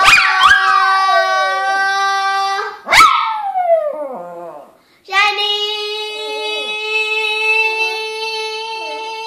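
A Maltese dog howling along with a girl's singing: long held notes, with howls that slide down in pitch at the start and again about 3 seconds in.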